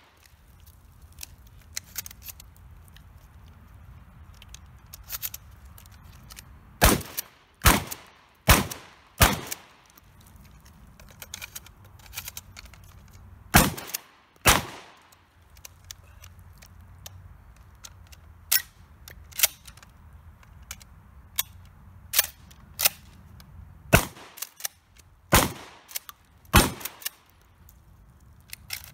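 Shotgun fired in quick strings: four shots a little under a second apart, then two more, then a longer run of rapid shots in the second half. Quieter clicks of the action and shell handling come between the strings.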